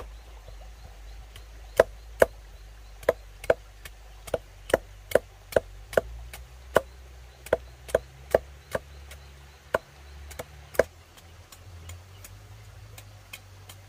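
Repeated chopping blows, about fifteen sharp knocks at an uneven pace of roughly two a second, stopping about eleven seconds in.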